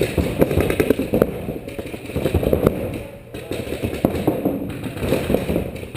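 Paintball markers firing in rapid strings of sharp pops, coming in bursts with a brief lull about halfway through.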